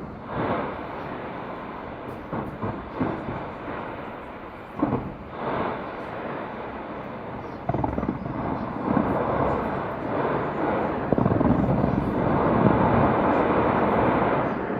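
Fireworks going off: scattered separate bangs at first, then from about eight seconds in a dense run of overlapping bursts and crackling that gets louder.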